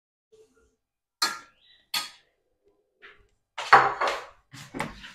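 Dishes and cutlery being handled: several separate sharp knocks and clinks, the loudest a quick cluster a little under four seconds in.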